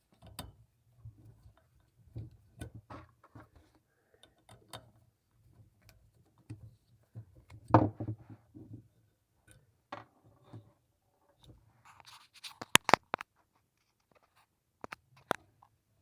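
Scattered clicks, scrapes and knocks of a Phillips screwdriver and hands working on a sink shut-off valve, taking the screw out of the valve handle. The loudest knock comes about halfway through, and a quick run of sharp clicks follows near the end.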